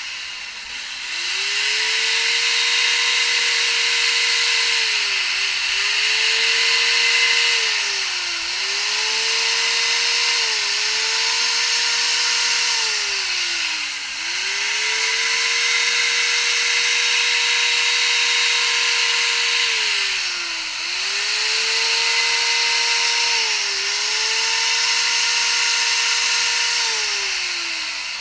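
Chainsaw running at high revs while cutting feather detail into a wooden owl carving, with a strong hiss of the chain in the wood. The engine note holds steady, then dips and climbs back every two to four seconds.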